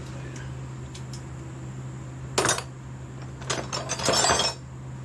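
Steel hand tools clinking and rattling: one sharp clank about halfway through, then about a second of clattering near the end. A steady low hum runs underneath.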